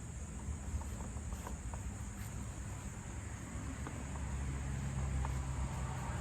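Crickets chirping steadily in the background, with a faint low hum and a few light clicks.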